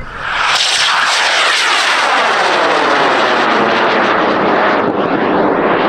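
A high-power rocket's L1300 solid motor firing at liftoff: a loud, steady roar that builds within about half a second and holds, with a sweeping phasing effect through it as the rocket climbs away.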